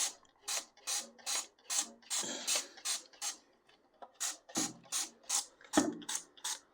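Dawn Powerwash trigger spray bottle being squeezed over and over, each squeeze a short spray hiss, about two or three a second, with a few dull knocks among them.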